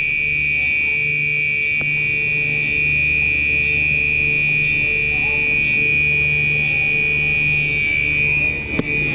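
Gentex Commander 3 fire alarm horn sounding on continuous: one steady, high-pitched tone that does not let up.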